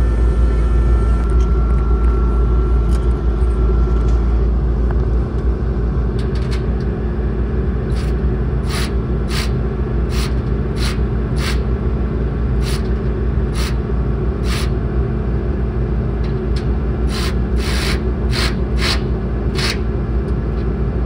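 Skid steer engine idling steadily. From about eight seconds in comes a run of short, sharp bursts, in clusters of two or three a second, from the tool tightening the solar panel clamp bolts.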